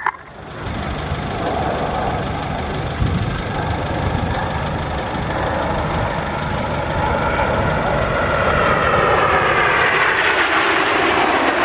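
Jet engines of the Red Arrows' BAE Hawk T1 formation flying past, a steady jet noise that grows louder over the last few seconds, with a sweeping pitch as the aircraft close in.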